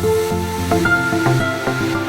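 Background music: a calm new-age style piece of sustained pitched notes and chords.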